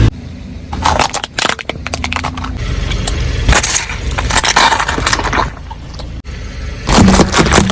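Objects crunching and cracking under a car's tyres, in several bursts of dense cracks about a second in, in the middle and near the end, over a low rumble of the car.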